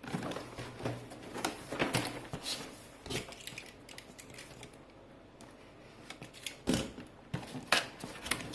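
Irregular clicks, taps and rustles of a toy box and its packaging being opened and handled, quieter in the middle, with a couple of louder knocks near the end.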